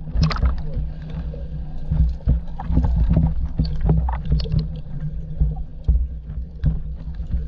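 River water sloshing and splashing around a camera held at the waterline, half in and half out of the water, with many small splashes over a steady low rumble.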